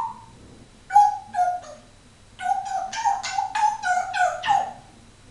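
African grey parrot calling: three short pitched notes about a second in, then a quick run of about seven more short notes.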